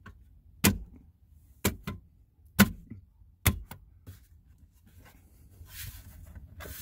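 A hand whacking the front cover under a 2008 Range Rover Sport's driver seat to snap its metal clips into place: four sharp knocks about a second apart, then a soft rustling noise near the end.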